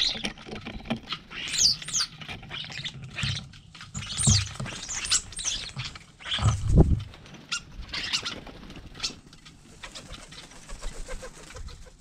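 European starlings squabbling at a feeder: squeaky whistles and chattering calls that slide up and down in pitch, with a scatter of clicks. Wings flutter as birds land and take off, most heavily about four seconds in and again past halfway.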